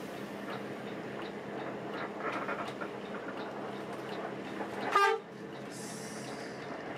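Steady engine and road noise inside a moving coach bus on a Mercedes-Benz 1526 chassis, with a light regular ticking and a few short tones about two seconds in. About five seconds in comes one sharp, loud click with a quick falling chirp, followed by a brief hiss.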